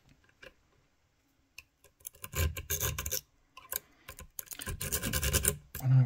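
A wave rake scraping and clicking rapidly over the pins of a cheap cruciform (crosslock) safe lock as it is raked open. Two bursts of raking, after about two seconds of quiet.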